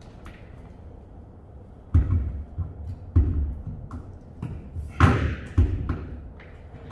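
Hammer blows against the ceiling of a refrigerated trailer as a plastic air chute is fastened up. There are four irregularly spaced thuds, the loudest about five seconds in.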